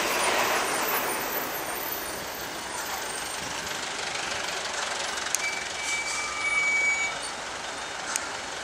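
Road traffic noise with a large vehicle's engine running. A faint steady high tone sounds for under two seconds a little past halfway.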